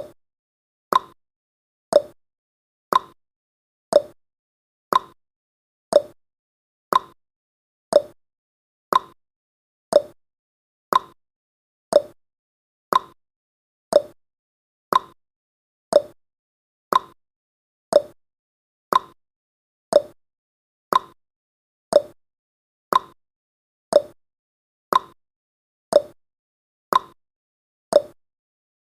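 Countdown timer's ticking sound effect: one short tick every second, evenly spaced, with silence between ticks.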